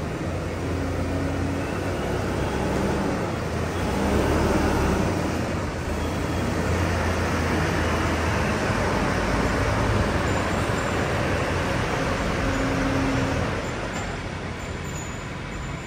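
Mitsubishi Canter Euro 4 truck's diesel engine running as the truck drives slowly into a workshop bay, a steady low drone that is strongest over the first half and then eases.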